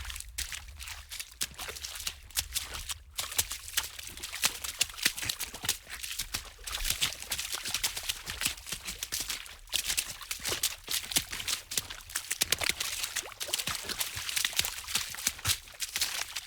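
Foley water splashing fast: rapid, irregular splashes and spatters of water, with a brief lull about three seconds in.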